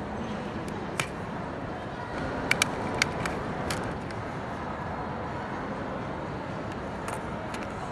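A few sharp plastic clicks and taps as small pry picks and the tablet's plastic back cover are handled: one about a second in, a quick cluster around two and a half to three seconds, and two fainter ticks near the end, over a steady background hiss.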